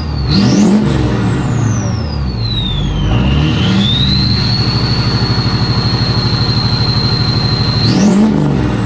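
Lifted Chevy Duramax turbo-diesel V8 truck with a big turbo being revved. A loud turbo whistle climbs high about a second in and sinks as the revs drop. The engine is then held at raised revs for about four seconds with a steady whistle and a fast, even beat, and another quick rev near the end sends the whistle up again.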